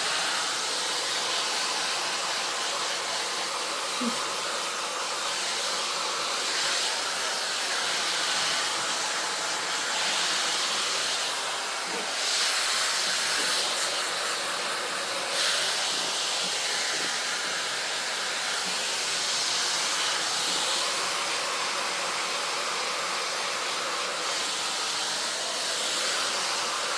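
Handheld ionic hair dryer running continuously: a steady rush of blown air that brightens briefly a few times.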